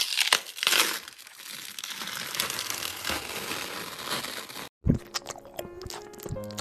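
A blade cutting through something crisp and crumbly: a dense, continuous crackling for about four and a half seconds. It stops abruptly, then comes a thump and a new run of sharp crunches over a low steady hum.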